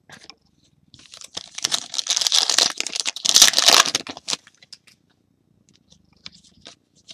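A foil trading-card pack being torn open and its wrapper crinkled for about three seconds, followed by a few faint clicks of cards being handled.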